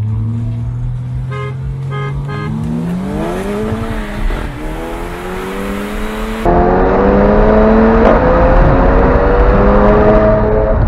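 Car engine at full throttle in a roll race, its pitch climbing steeply, dropping at a gearshift about four seconds in, then climbing again, louder from the middle on. Three short high tones sound just before it pulls away.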